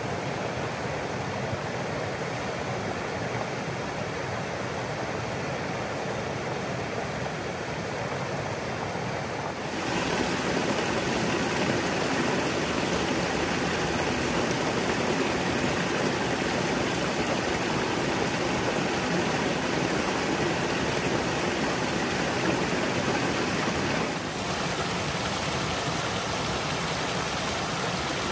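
Creek water rushing over small rocky cascades into shallow pools, a steady rush that grows louder and brighter about ten seconds in and eases a little near the end.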